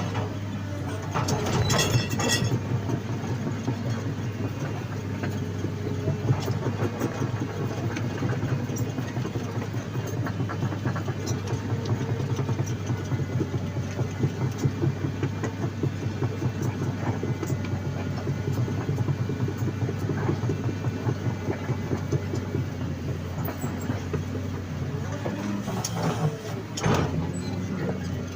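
Excavator's diesel engine running steadily while its steel tracks clank and rattle over loose soil, packing it down. There are a few sharper clanks about two seconds in and again near the end.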